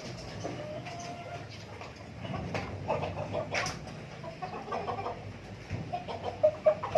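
A flock of native chickens clucking, with many short calls that grow denser toward the end. There is a brief sharp click about three and a half seconds in.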